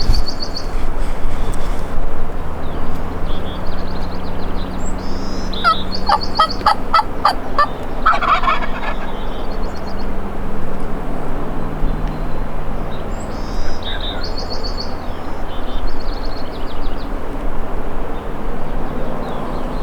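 A wild turkey gobbler gobbling: a rapid, rattling gobble about six seconds in, followed at once by a shorter one. Small birds chirp in the background.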